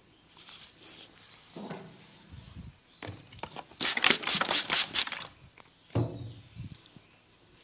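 Hands slapping and tapping on a person's head in a head massage: a few soft thumps, then about a second and a half of rapid sharp strikes, about six a second, the loudest part, and one more thump near the end.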